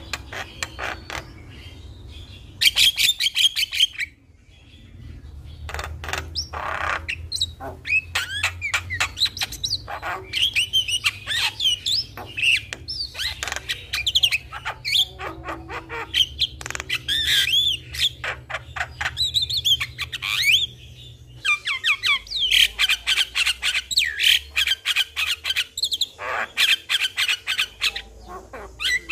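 Javan myna (jalak kebo) singing a fast, continuous run of chattering, squawking and whistled notes, broken by two short pauses.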